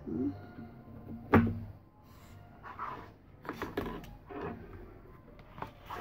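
Crafting materials being handled on a tabletop: one sharp knock about a second and a half in, then scattered clicks and paper rustling as a wooden ruler is lifted away and a sheet of scrapbook paper is picked up.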